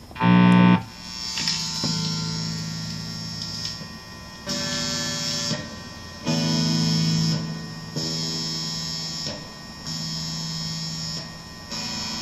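Guitar amplifier putting out an electrical hum-buzz, a stack of steady tones that cuts in and out in stretches of a second or two. It comes through whatever preset is used, and the owner blames the apartment's wiring, since the amp was fine at his old place.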